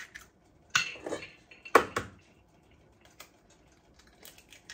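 Metal utensil knocking against a mixing bowl with mashed potatoes: two sharp knocks about a second apart, then several faint clinks.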